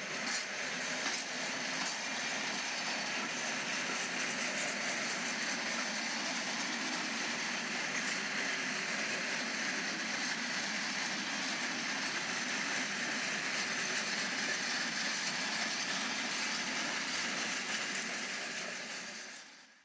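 Z-scale model diesel locomotive running on the layout's track, pulling tank wagons: a steady, faint hiss of the tiny motor and wheels that fades out right at the end.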